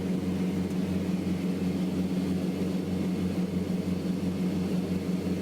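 Beechcraft Travel Air's twin four-cylinder piston engines and propellers running steadily at climb power, a steady drone with a wobbling beat about three times a second from the two engines turning at slightly different speeds.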